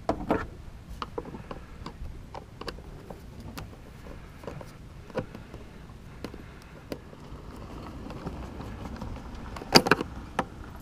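Light clicks and taps of a screwdriver working the screws out of the plastic water valve housing on a Thetford RV toilet, with a louder clatter of knocks near the end.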